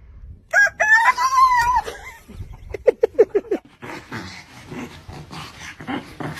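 A rooster crowing once: a single drawn-out call that starts about half a second in, holds its pitch and then drops away.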